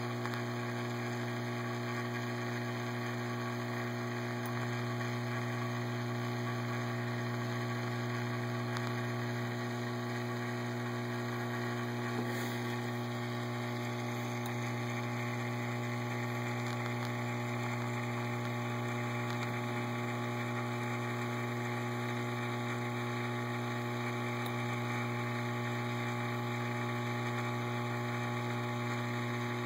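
Reef aquarium pump running, a steady electric hum with a low hiss above it.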